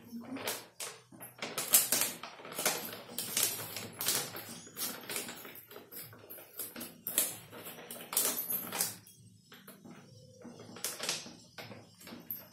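Plastic packet of frozen french fries crinkling and rustling in irregular crackles as it is handled and cut open with scissors, with bangles jingling on the wrists.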